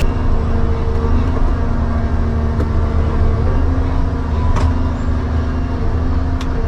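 A large engine running steadily with a deep hum, with three sharp clicks spread through it.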